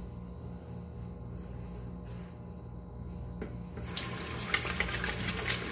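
A low steady hum, then about four seconds in a bathroom sink tap turns on and water runs hard with splashing, as the foam cleanser is rinsed off the face.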